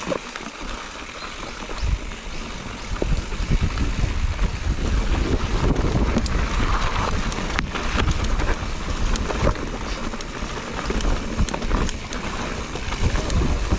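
Mountain bike riding down a rough dirt trail: wind buffeting the microphone and tyres running over dirt and stones, with frequent short rattles and clicks from the bike over bumps. It gets louder about two seconds in as the bike picks up speed.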